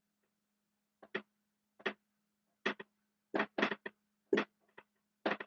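Dry-erase marker writing on a whiteboard: a quick run of about a dozen short strokes as a line of words is written.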